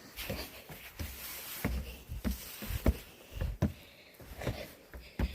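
Footsteps thudding on the steps of a long outdoor stairway, an uneven stride of about two steps a second, with some faint breathing between them.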